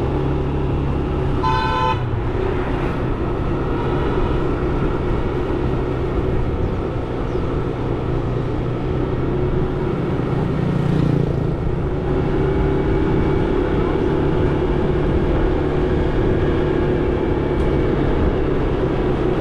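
Motorbike engine running steadily during a ride. A vehicle horn gives one short beep about a second and a half in.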